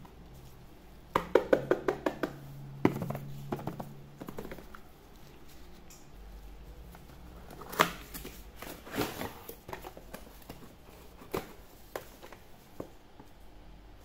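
Cardboard toy box handled and opened by gloved hands, with the plastic push-game toy taken out: a quick run of sharp taps about a second in, then scattered knocks and rustles of cardboard and plastic.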